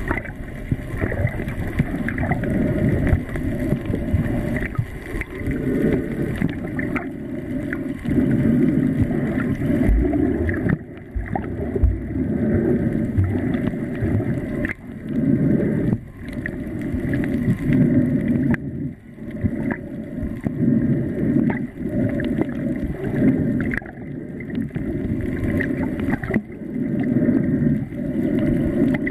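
Muffled underwater rush of water picked up by a camera held below the surface, swelling and fading every two to three seconds.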